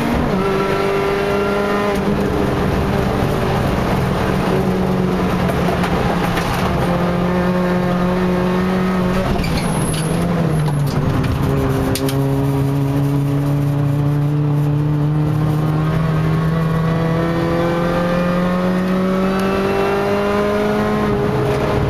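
A MINI Challenge race car's four-cylinder engine heard from inside the cabin, pulling hard through the gears on a track lap. The pitch climbs steadily and drops back at each upshift, with a break around ten seconds in as the car slows through a corner before pulling again from a lower pitch.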